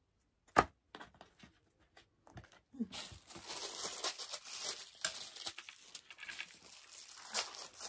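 Plastic cutlery packet being torn open and crinkled: a dense crackling from about three seconds in that lasts roughly four seconds, after a single sharp tap near the start.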